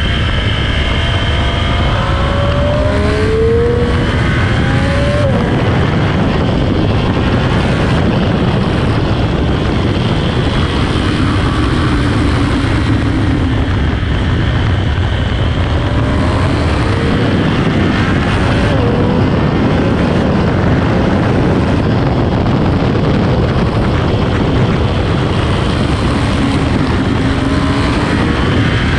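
Sport motorcycle engine on its stock exhaust running hard on track under a heavy rush of wind noise, its pitch climbing and dropping several times as it accelerates, shifts and backs off.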